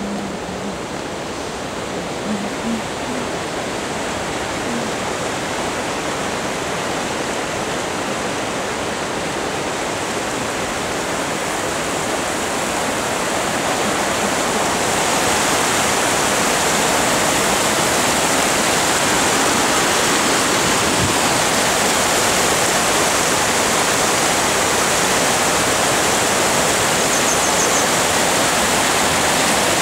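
Shallow alpine mountain stream rushing over a small weir and rocks: a steady roar of water that grows louder about halfway through, then holds.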